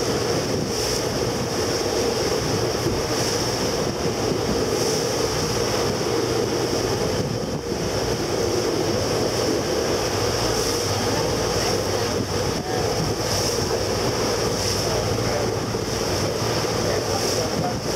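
Motor boat running steadily through a choppy sea, its engine under water rush and wind buffeting the microphone.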